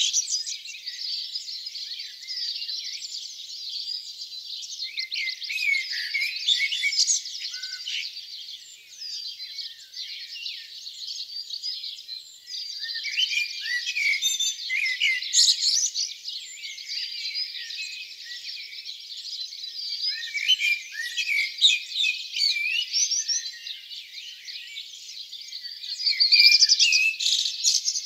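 Dawn chorus: many songbirds singing at once, a dense mix of overlapping high chirps, trills and whistles, swelling louder around the middle and near the end.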